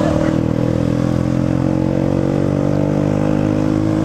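Motorcycle engine running at a steady cruise while riding, its pitch easing slightly in the first half second and then holding, with wind rushing past the microphone.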